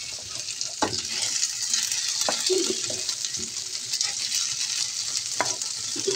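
Hot oil with cumin seeds sizzling steadily in a frying pan as mashed boiled potatoes are scraped in from a bowl, with a few light knocks along the way.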